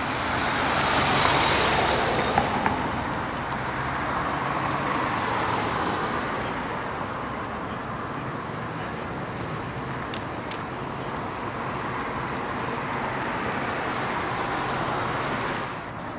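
Road traffic passing on a city street, a steady rush of tyres and engines over a low hum. It swells loudest as a vehicle goes by about a second or two in, swells again around five seconds, and drops away just before the end.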